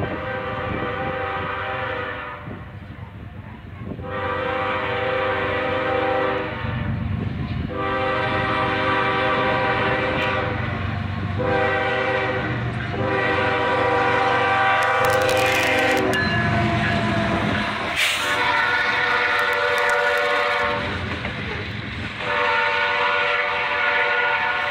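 Diesel locomotive air horn sounding a series of blasts, each a steady chord of several notes with short gaps between, the longest in the second half, as the train nears and reaches a grade crossing. Near the end the lead units and grain hopper cars pass close by, adding the rumble and clatter of wheels on the rails.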